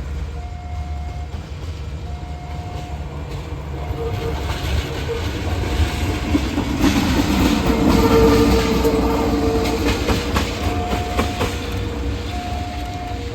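Train passing close by and sounding its horn: a long horn blast about seven seconds in, as the train's rumble builds to its loudest. Then wheels click over the rail joints as the cars go by. A repeating two-note electronic tone sounds throughout.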